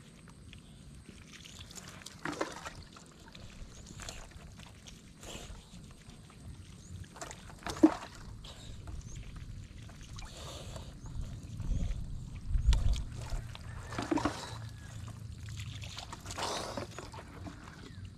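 Water poured from a dipper over a person bathing, splashing in several separate pours a few seconds apart. A low rumble rises around the middle.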